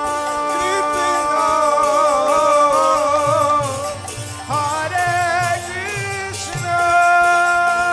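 Kirtan devotional music: long, wavering held melodic notes over a steady, evenly repeating percussion beat.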